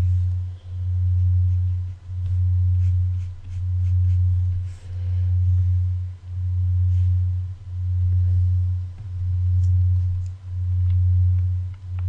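Low, loud hum that swells and dips regularly about every one and a half seconds, with a few faint clicks over it.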